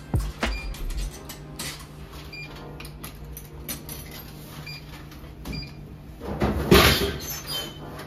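Drinks vending machine sale: clicks as money goes into the slot, a few short electronic beeps, then a bottle dropping with a loud clatter into the dispensing bin about six and a half seconds in. A steady low hum runs underneath.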